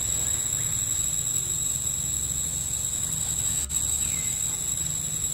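Steady, high-pitched insect drone that holds at one pitch throughout, over a low rumble, with a single brief click about three and a half seconds in.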